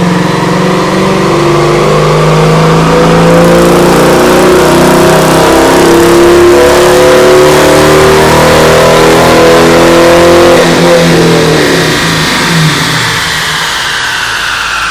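2009 Dodge Challenger's 5.7-litre Hemi V8 making a wide-open-throttle dyno pull through a MagnaFlow Competition Series cat-back exhaust, its revs climbing steadily under load. About eleven seconds in the throttle closes and the revs fall away as it coasts down, with a falling whine.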